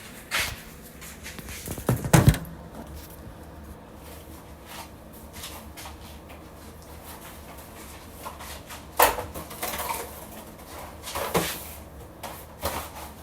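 Scattered knocks and thumps of household items being handled and set down while a fridge is cleared out, the loudest a double knock about two seconds in, with a few sharper clacks near the end.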